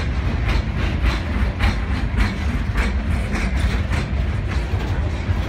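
CN freight train passing at speed, its empty centerbeam flatcars rolling by with a steady low rumble and the wheels clicking over rail joints about twice a second.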